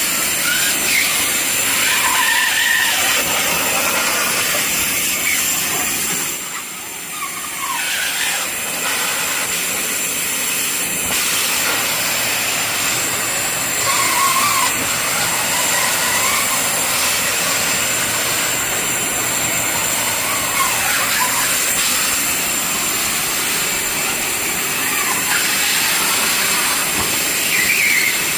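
Industrial coolant sludge vacuum cleaner running with a steady loud hiss as its wide floor nozzle sucks up water from the floor, the level dropping briefly about six seconds in.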